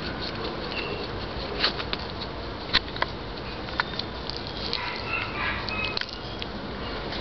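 A miniature poodle gives a faint, short, high whine about five seconds in, among scattered sharp clicks, over a steady background hum.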